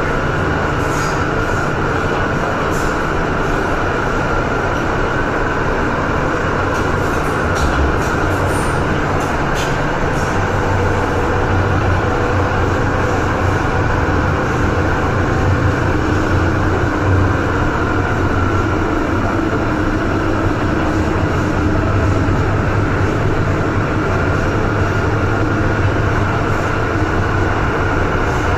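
MTR M-train electric multiple unit running: a steady rumble with a constant whine, and a few faint clicks in the first ten seconds.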